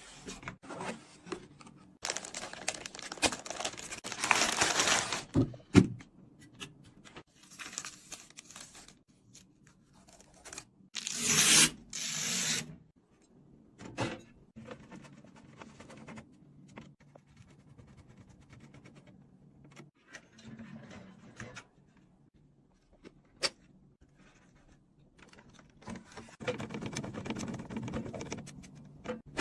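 Packaging and computer parts being handled during a PC build: bursts of rustling and tearing, the loudest about a third of the way in, with scraping and scattered clicks and knocks between them.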